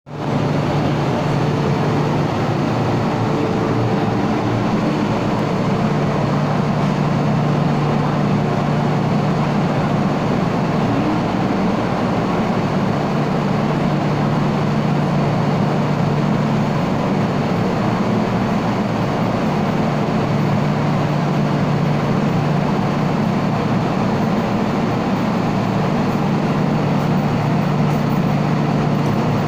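An MTR M-Train electric multiple unit standing at the platform with its doors open: the steady hum of its onboard equipment, with a low drone underneath.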